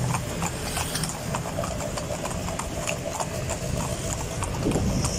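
Hooves of a pair of carriage horses clip-clopping on an asphalt road as they pull a calèche, a run of sharp, uneven clicks.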